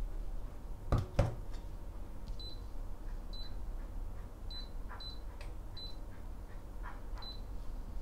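A pot set down on an induction cooktop's glass top with two quick knocks, then the cooktop beeping: about six short, high beeps, one for each press of its touch controls.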